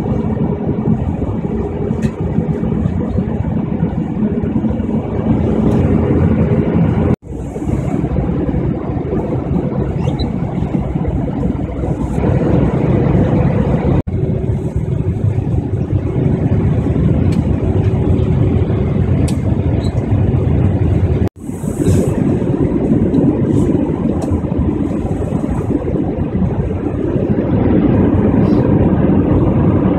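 Airliner cabin noise at a window seat beside a turbofan engine during descent: a steady roar with a few faint steady tones in it. The sound cuts out briefly three times, about 7, 14 and 21 seconds in.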